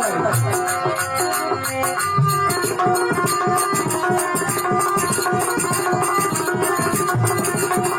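Instrumental passage of Rajasthani folk bhajan music: held melodic notes, sliding at the very start, over hand-drum percussion. About two seconds in the drumming settles into a fast, even rhythm.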